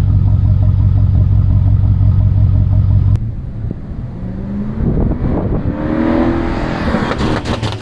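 Tuned BMW 750i twin-turbo N63 V8 engine and exhaust: a loud steady drone for about three seconds that drops off suddenly, then climbs in pitch over the next few seconds, with the first sharp exhaust crackles from the Stage 1 crackle tune near the end.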